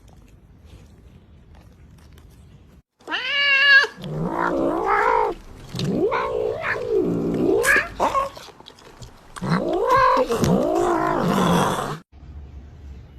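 A cat yowling: a run of long, wavering, drawn-out calls that begins about three seconds in and ends shortly before the close.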